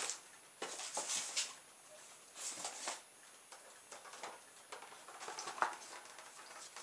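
Handling noises from the packing: a polystyrene packing tray and plastic wrapping rustling and scraping as a boxed toy RC helicopter is lifted out. They come as a few short rustles, with a sharper knock near the end.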